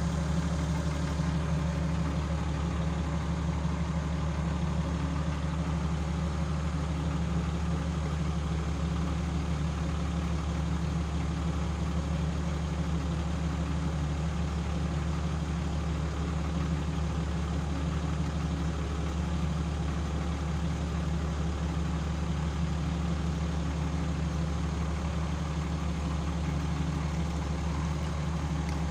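Hitachi Zaxis 210F-5G excavator's diesel engine idling, a steady low hum that does not change.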